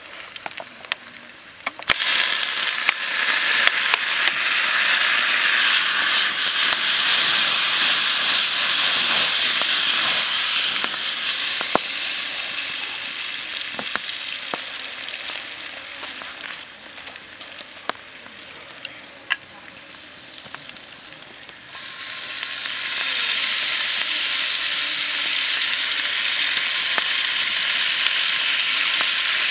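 Sliced onions sizzling in hot oil in a frying pan over a wood fire, with scattered light clicks of a utensil. The sizzle grows loud about two seconds in, eases off through the middle, and jumps up again near the end as squid and diced carrots go into the pan.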